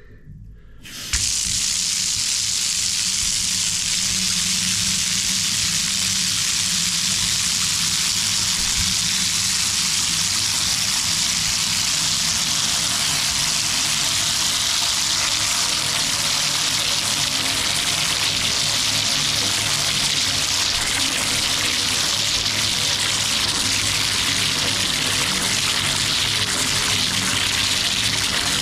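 A bathtub filling: water is turned on about a second in and then runs into the tub with a steady gush.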